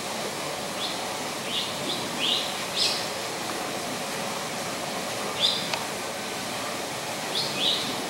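Small birds giving short, high chirps, about eight in all, in loose runs: several in the first three seconds, then more in the second half, over a steady hiss of background noise.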